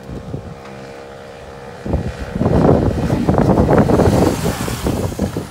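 Tao Tao Hellcat 125's 125 cc single-cylinder four-stroke engine running as the mini bike rides up the street and passes close by. Its steady engine note is covered about two seconds in by loud wind rumble on the microphone.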